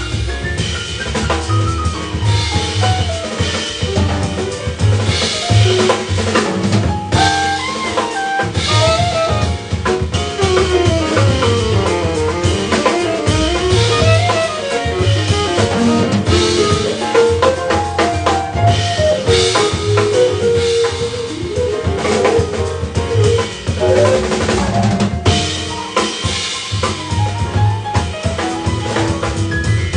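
Live jazz quintet playing: saxophone carrying a moving melodic line over drum kit, upright bass, piano and electric guitar.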